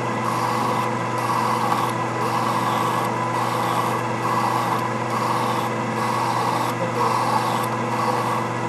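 Hand file rasping against an SM45C steel workpiece spinning in a Boley 8 mm watchmaker's lathe, one stroke about every second, over the steady hum of the lathe motor.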